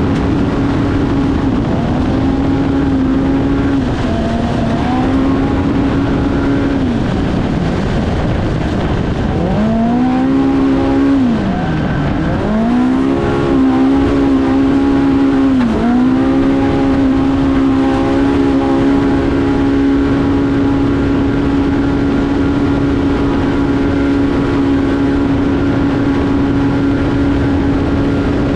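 Polaris Pro R UTV race engine held at high revs, with short lifts off the throttle, one deep drop in revs about twelve seconds in that climbs straight back, then held steady at high revs to the end. A constant rush of wind and terrain noise runs under it.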